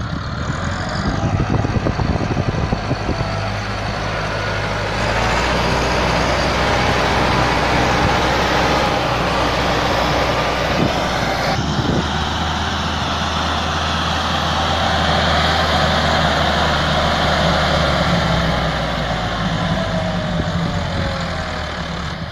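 Massey Ferguson 375 tractor's diesel engine running hard under load while pulling a loaded tipping trolley. The engine sound is steady, shifting abruptly about five and twelve seconds in.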